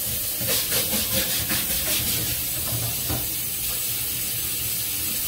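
Minced garlic sizzling in hot oil in a cast-iron skillet, a steady hiss with a run of short crackles in the first two or three seconds.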